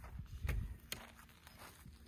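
Footsteps on dry dirt and grass, with two sharp knocks about half a second and a second in as a long-handled maul is leaned against the stacked firewood.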